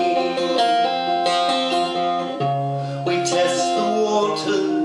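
Steel-string acoustic guitar playing chords in an instrumental passage between sung lines, with new notes plucked about once a second and a chord change about halfway through.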